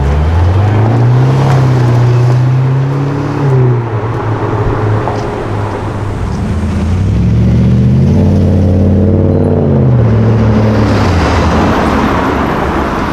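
Sports car engine revving up twice: the pitch climbs and holds for a few seconds, then drops; it climbs again about halfway through and falls away near the end.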